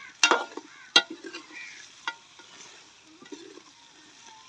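Metal ladle stirring chicken and spices frying in a large metal pot. The ladle strikes the side of the pot in three ringing clanks in the first couple of seconds, over a faint sizzle.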